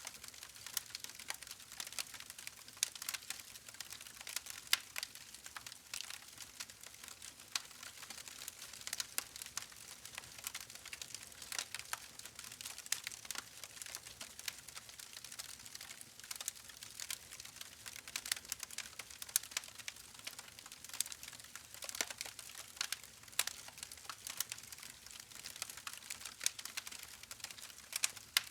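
Wood fire crackling: irregular sharp pops and snaps over a soft hiss.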